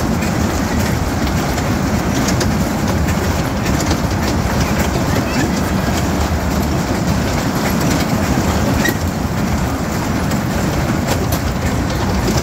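Amusement ride machinery running: a steady rumble with light, scattered clicking.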